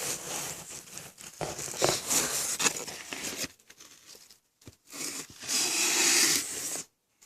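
Packaging being torn and crinkled as the next animal is unpacked: stretches of rustling, a quieter gap about four to five seconds in, then a louder tear that cuts off sharply near the end.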